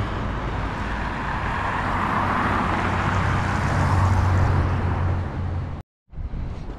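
A road vehicle passing close by: tyre and engine noise swell up and die away, with a steady low engine hum underneath. It cuts off suddenly near the end, then gives way to quieter outdoor noise.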